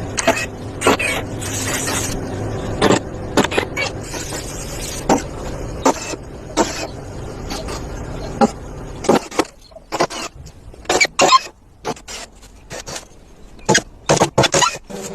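Irregular sharp knocks and clicks of workshop handling, over a steady background noise that fades out about nine seconds in.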